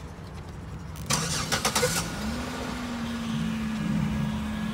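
A car engine starting: a short rough burst about a second in, then it settles into a steady idle.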